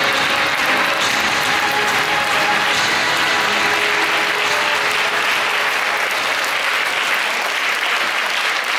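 Audience applauding steadily, with faint music beneath.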